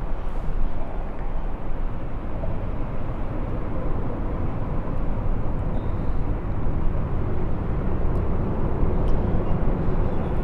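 Steady low rumble of road traffic on the bridge overhead.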